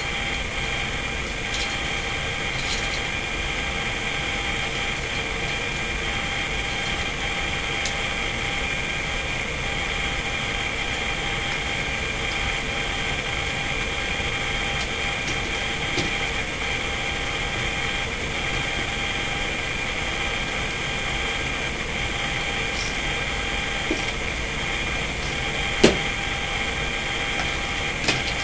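Steady machine hum with several held tones, under a few light clicks and taps of small tools and parts being handled, the sharpest about 26 seconds in.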